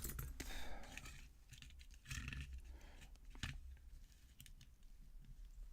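A few scattered metal clicks and short scrapes of a lock being handled and worked apart, faint against a low steady hum.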